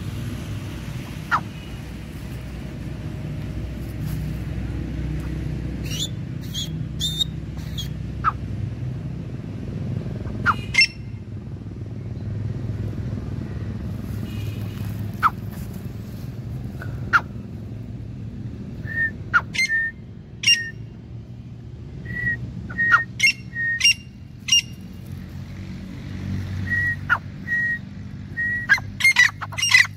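Grey francolins giving short, sharp call notes, scattered and spaced apart at first, then quickening into a rapid run of calls near the end.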